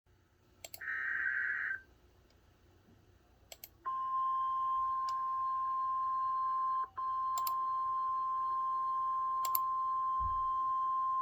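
NOAA Weather Radio alert. A short data burst of the SAME alert header comes about a second in. From about four seconds the steady single-pitch 1050 Hz warning alarm tone sounds, with one brief break near seven seconds. Faint radio static with occasional clicks runs underneath.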